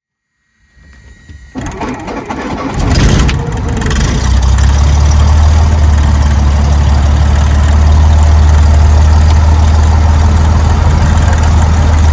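The 1951 Cessna 170A's six-cylinder Continental engine starts: it cranks and catches two to three seconds in, then runs steadily with a strong low hum. Heard from inside the cockpit.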